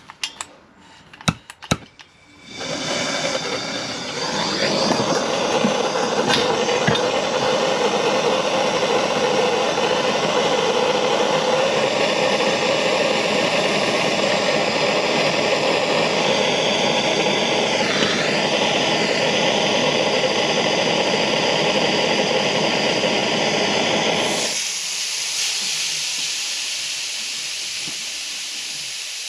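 A few sharp clicks, then a handheld gas blowtorch burning steadily for about twenty seconds as it heats a fluxed copper elbow joint for soldering. The flame cuts off near the end, leaving a thinner hiss as a rag is wiped over the hot, freshly soldered joint.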